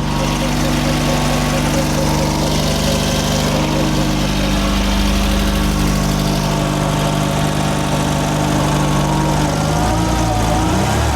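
Mk1 VW Golf 1.8 four-cylinder engine idling steadily on choke while warming up from a cold first start. Near the end the steady note breaks up and wavers.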